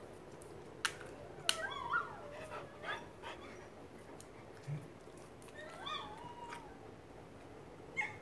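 A dog whining and yipping in high, falling cries, one cluster about a second and a half in and another about six seconds in, with a few sharp clicks.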